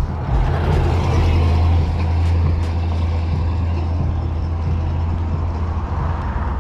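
A large motor vehicle's engine running close by: a deep steady rumble with road noise.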